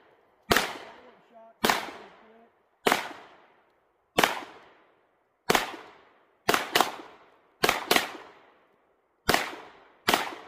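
Springfield Armory Echelon pistol being fired: eleven shots, mostly about a second apart, with two quick double shots a little past the middle, each followed by a decaying echo. These are the first rounds through the new gun.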